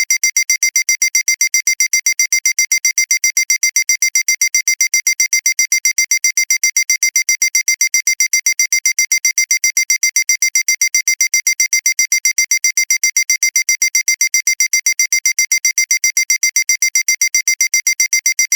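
Synthesized electronic sound effect: a thin, high-pitched tone pulsing on and off several times a second, evenly and without change.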